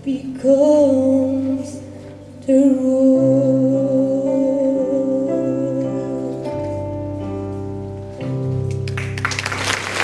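A woman singing long held notes with vibrato over sustained accompaniment chords. Audience applause breaks out near the end.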